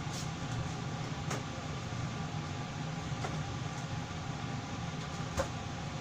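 Kitchen ventilation fan running steadily with a low hum, with four faint clicks, the sharpest about five seconds in.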